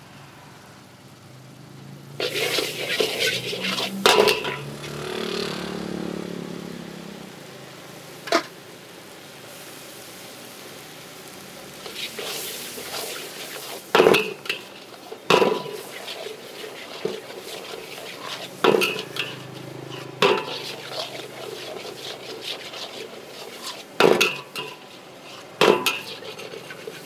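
Metal spatula scraping and clanging against a blackened wok as noodles are stir-fried, with frying sizzle. A dense burst of scraping starts about two seconds in, then single sharp clangs follow every few seconds, each with a short metallic ring.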